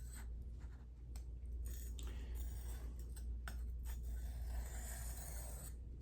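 Steel knife blade, a Spyderco Domino clone, being stroked across a sharpening stone: a run of dry scraping strokes over a steady low hum.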